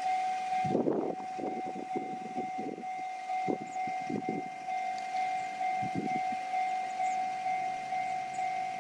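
Railway level crossing's electronic warning bell sounding a steady ringing tone. Irregular low rumbling thumps come through it in the first half and again about six seconds in.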